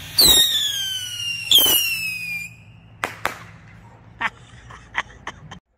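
Two Black Cat Neon Master Missile rockets launching about a second apart, each with a loud whistle that falls in pitch. About three seconds in, their reports go off as a sharp crack followed by a string of smaller cracks.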